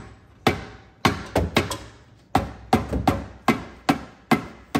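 A rubber-headed mallet lightly tapping a clutch pressure plate about a dozen times, two to three taps a second, each hit with a short metallic ring. The taps are meant to break the pressure plate loose from the flywheel, where it has stuck after years in place.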